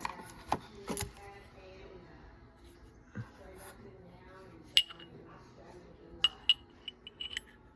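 Silver bullion rounds and bars clinking against each other as they are picked up and set down: a few sharp metallic clinks with a short ring, several close together near the end.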